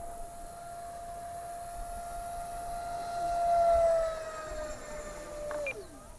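Screaming whine of an RC F-15E jet's 64 mm, 12-blade electric ducted fan on a fly-by. The steady high whine swells to its loudest about four seconds in, drops in pitch as the jet passes, then falls away steeply near the end.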